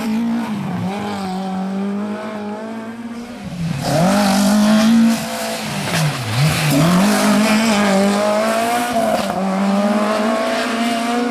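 Rally car engine revving hard through tight corners, its pitch rising and falling as the driver lifts off and changes gear. It gets louder about four seconds in, with a sharp drop and climb in revs around six seconds.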